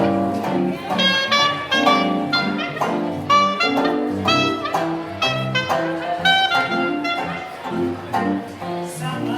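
Instrumental music with no singing: a busy melody of short, quick notes over a lower accompaniment.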